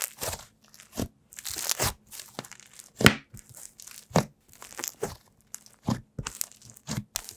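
Slime being squished and stretched by hand, giving irregular sticky pops, clicks and short tearing crackles, about one or two a second.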